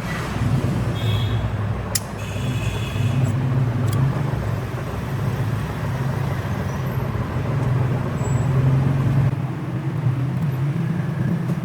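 A motor running with a steady low hum, with a sharp click about two seconds in and brief metallic ringing around it.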